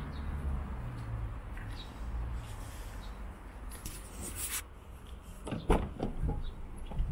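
Car door being opened and shut: a brief rustle, then a cluster of sharp clicks and knocks about five and a half seconds in, over a low rumble.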